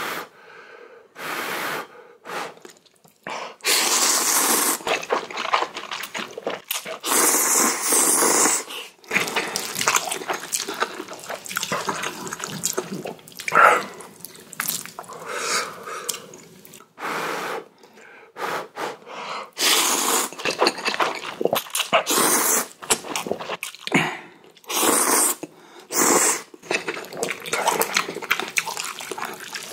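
Person slurping spicy instant ramen noodles off chopsticks: a series of loud, wet slurps, each a second or two long, with short pauses between them.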